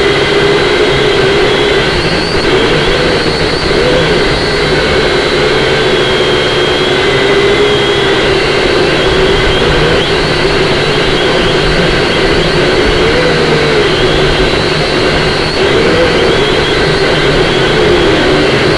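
Syma X5C-1 quadcopter's small electric motors and propellers whining continuously. The pitch wavers and briefly rises several times as the throttle and motor speeds change, over a heavy rush of wind noise.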